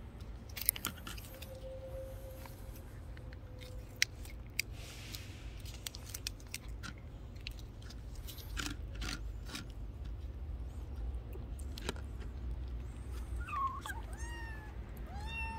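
Stray kittens eating dry food from a plastic dish, with scattered sharp clicks and crunches, then near the end a kitten mewing about five times, short high calls about two a second.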